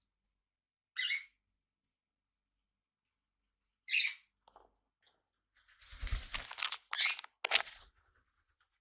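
Small pet parrots giving short chirps about a second in and again about four seconds in, then a busy stretch of scuffling noise with a low thump near six seconds and a few sharp bursts.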